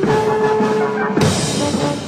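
Orchestral music led by brass holding long notes over drums, with a percussion crash a little over a second in.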